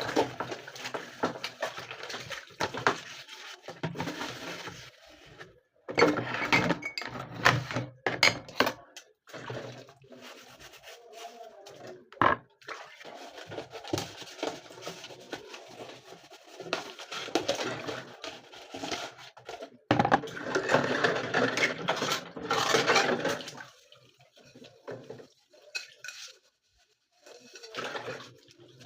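Washing up by hand: dishes and cutlery knocking and clinking, with stretches of running tap water.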